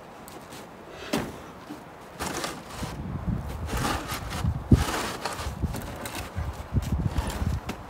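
A homemade metal ski-trail groomer being dragged out through deep snow, with footsteps crunching in the snow and irregular scraping and knocking. It is quiet at first, with a sharp click about a second in, then a busy run of scrapes and thumps, the loudest a heavy thump about halfway through.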